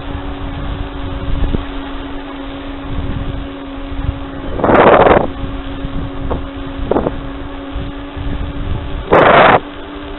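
Wind rushing over the microphone of a moving bike, with a faint steady hum underneath. Two short, loud bursts of noise come about halfway through and near the end.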